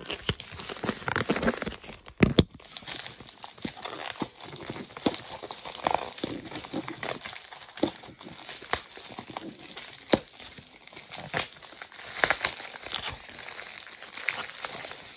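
A white mailer package being crinkled and torn open by hand: irregular crackling and rustling with frequent sharp clicks, and a couple of louder knocks about two seconds in.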